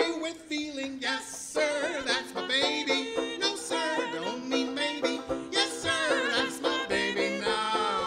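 A 1920s-style song performed live: a banjo ukulele strummed under singing with a wide, wavering vibrato.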